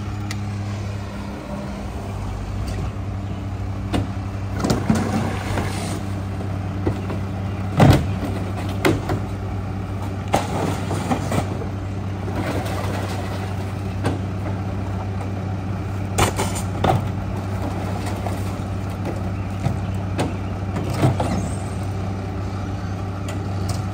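Mack rear-loader garbage truck's diesel engine running at a steady speed with a low hum, while trash cans are banged against the McNeilus hopper and emptied, giving a series of scattered knocks and thuds; the loudest comes about eight seconds in.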